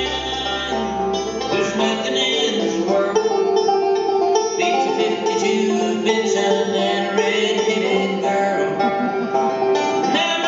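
Bluegrass band playing an instrumental passage: banjo, mandolin, fiddle and upright bass.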